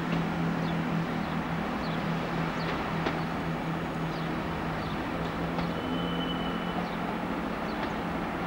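Diesel train running along the line: a steady engine hum under an even rumble of wheels and track, with faint short high squeaks now and then and a brief thin whine about six seconds in.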